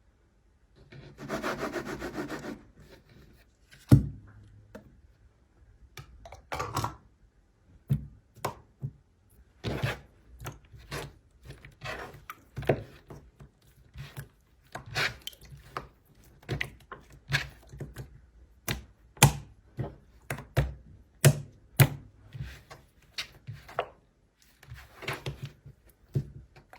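Slime being pressed and worked by hand: irregular sticky clicks and pops, one or two a second, after a short rustle and a sharp knock near the start.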